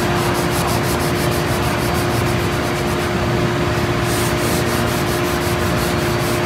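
Sanding block with sandpaper rubbing back and forth over a gray-primed cabinet door, scratching in quick, even strokes.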